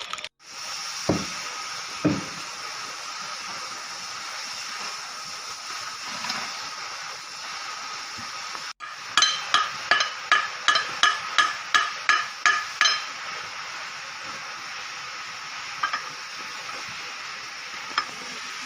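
A hammer striking metal about a dozen times in quick succession, roughly three blows a second, each ringing briefly, over a steady hiss. Two dull thumps come near the start.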